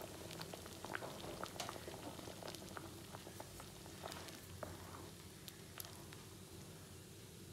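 Thick lentil sambar boiling in a pan: faint, irregular popping of bubbles bursting through the thick stew.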